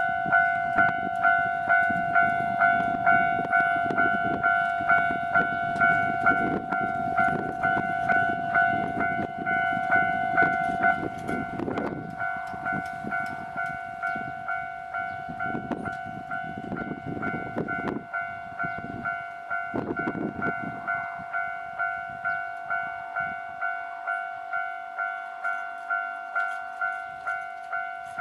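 Japanese railway level-crossing alarm ringing its electronic bell, a pitched ding repeating about one and a half times a second. A train passes over the crossing underneath it, its rumble dying away in a few last surges about twenty seconds in.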